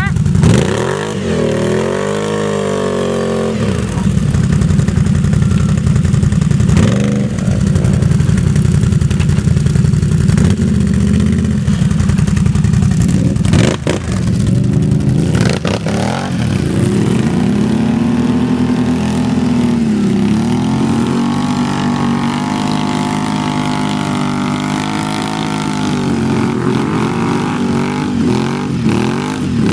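ATV engines running and revving in repeated rises and falls in pitch, with a few sharp knocks about fourteen to sixteen seconds in.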